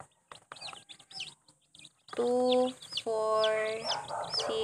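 Newly hatched chicks peeping in short, high chirps. About halfway through, a much louder pitched sound comes in as two long held notes, one short and one about a second long, while the peeping goes on over it.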